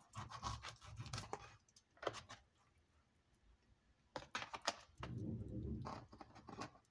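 Faint handling of roast chicken in a thin black plastic takeaway tray: hands pulling the meat apart, with irregular scrapes and clicks on the plastic in short clusters, and a duller rustle lasting about a second near the end.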